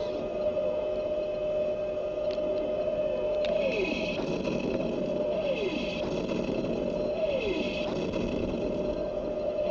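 Sound unit of an RC M1A2 Abrams tank playing its engine-idle effect through the model's small speaker. It is a steady hum with a falling whine that repeats about every two seconds, as a looped sample would.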